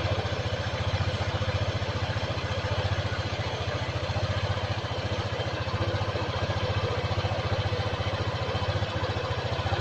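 2018 Honda PCX scooter's single-cylinder engine idling steadily with a rough, clattery note, still not smooth after its first service. The dealer put this noise down to a harder rubber part used on this PCX generation.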